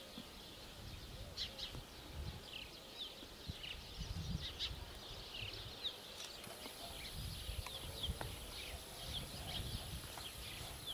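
Small birds chirping: many short, high chirps scattered irregularly throughout, over a low, gusty rumble of wind on the microphone.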